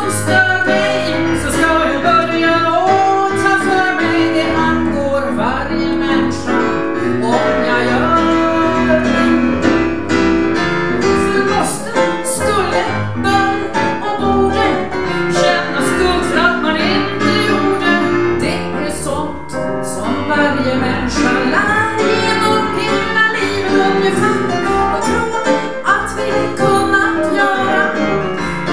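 A woman singing into a microphone, accompanied by an electronic keyboard playing chords.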